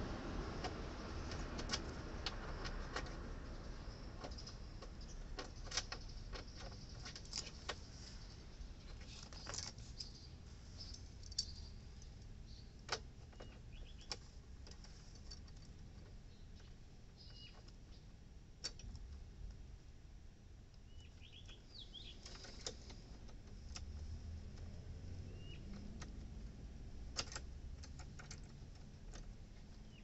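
Scattered light clicks and rustles of hands working the end of an insulated air-conditioner copper line and a metal flaring-tool clamp bar, with a few short bird chirps.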